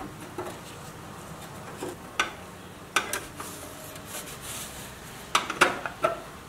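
Screwdriver prying and scraping at the pressed-steel grille of a rusty 1965–66 Tonka toy pickup: sharp metal clicks and short scrapes, with the loudest cluster of clicks about five and a half seconds in.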